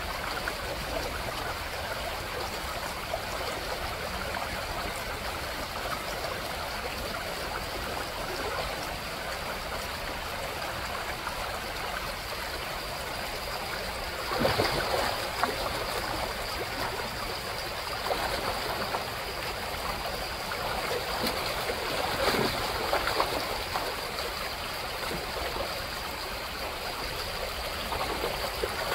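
Shallow gravel creek running steadily, with chum salmon splashing and thrashing in the shallows in short bursts about halfway through and again a few seconds later.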